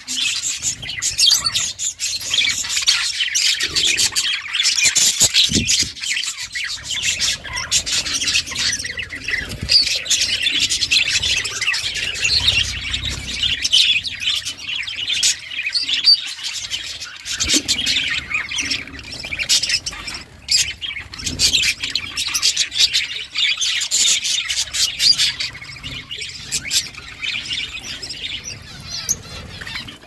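Budgerigars chirping and squawking in a dense, rapid, continuous chatter.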